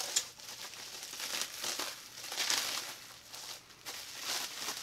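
Toy packaging crinkling and rustling as it is handled and unwrapped, in a string of short, scratchy, irregular bursts.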